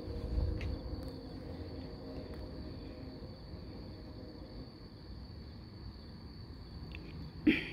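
Crickets chirping in one steady, high, unbroken trill, with a brief low thump about half a second in and a short, sharp knock near the end.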